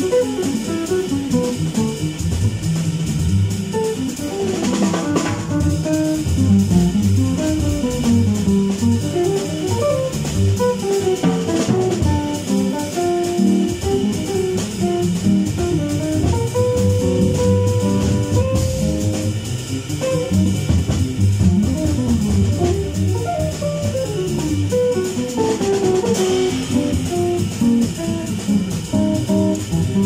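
Jazz quartet playing live: an archtop jazz guitar carries running single-note lines over upright-style walking bass and a drum kit with cymbals.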